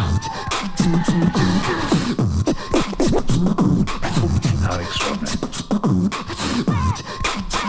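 Beatboxing music track with a steady beat of mouth-made thumps and clicks.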